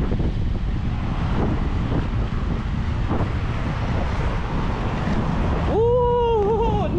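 Steady rumble of inline skate wheels rolling over concrete sidewalk, with wind buffeting the microphone. Near the end a short pitched tone sounds for under a second, rising at its start and dropping away.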